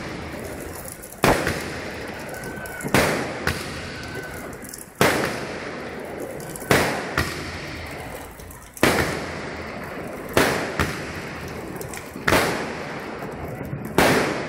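Aerial fireworks bursting overhead: a series of sharp bangs, about eight, coming every one and a half to two seconds. Each bang trails off and is sometimes followed by a smaller pop.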